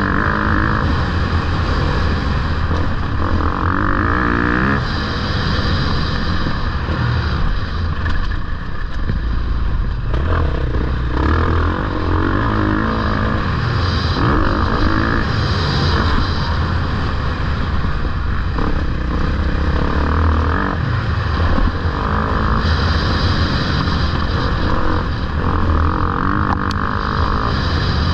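Motocross motorcycle engines revving, loud and continuous, their pitch rising and falling.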